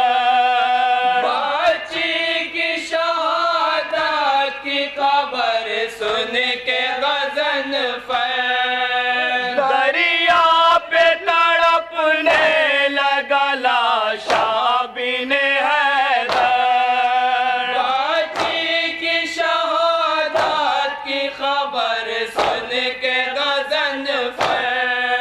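Group of men chanting a noha, a Shia lament for Karbala, in unison through a loudspeaker system in long held sung phrases. Sharp slaps recur in time with the chant, the mourners' chest-beating (matam).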